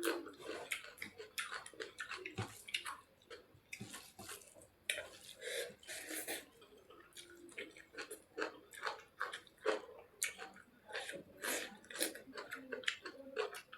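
Close-up wet chewing and lip-smacking of someone eating saucy chicken curry: a steady run of irregular, moist clicks and squelches.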